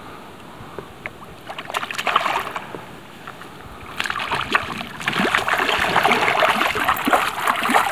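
A hooked fish thrashing and splashing at the water's surface beside a canoe as it is brought to the landing net. Scattered splashes at first, then louder and almost continuous from about four seconds in.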